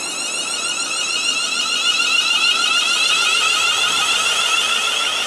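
Siemens Class 380 Desiro electric multiple unit pulling away from the platform, its traction equipment giving a high, wavering whine that grows louder as the rear car passes close by.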